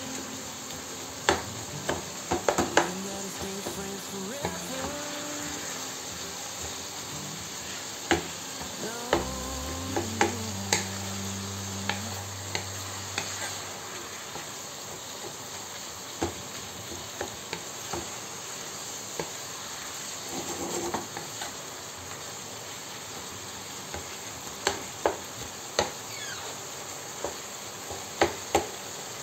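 Diced chicken sizzling in a frying pan while a spatula stirs it, scraping and knocking against the pan. The sharp knocks come in clusters, a few seconds in, around a third of the way through, and again near the end.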